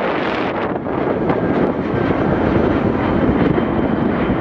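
Airbus A320 airliner's twin jet engines at approach power as it passes low on final approach: a loud, steady rushing roar that deepens in the second half, with a faint thin whine over it later on.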